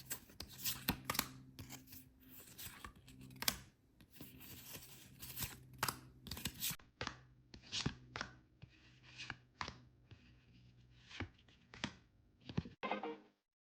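Packaging being torn open and handled: a run of short, sharp rips and rustles, with a cut about halfway through.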